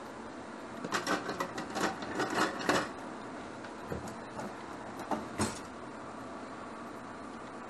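Kitchen utensils clattering and scraping for about two seconds, then a few light taps of a utensil against a non-stick frying pan as strips of pancetta are turned in it.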